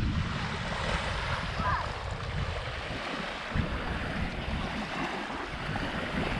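Small lake waves washing steadily onto a sandy beach, with wind rumbling on the microphone.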